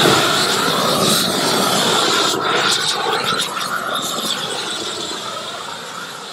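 Propane roofing torch burning with a loud, steady jet noise as it heats the underside of a modified-bitumen torch-down roll being unrolled. The noise cuts in suddenly and eases slightly toward the end.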